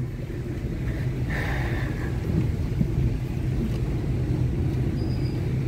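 Car engine and road noise heard from inside the cabin while driving slowly: a steady low hum, with a brief hiss about a second and a half in.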